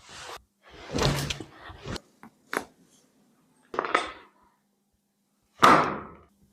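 A series of thuds and knocks of bodies and hands on a chiropractic treatment table during an adjustment, about five in all, with the loudest about five and a half seconds in.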